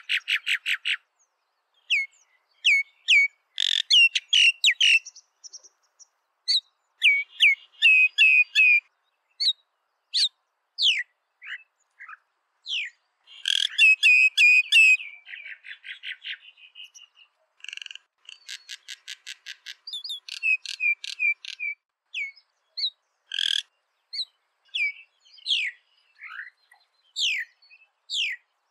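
Common myna calling: a varied string of whistles and chirps, some gliding up or down, mixed with fast runs of rapidly repeated notes, in phrases separated by short gaps.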